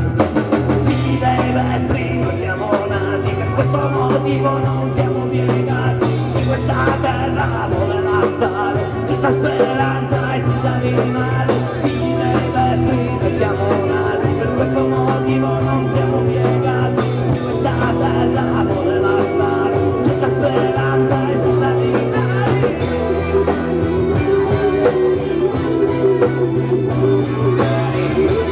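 Live rock band playing amplified through a PA: a man singing over electric guitar and bass guitar.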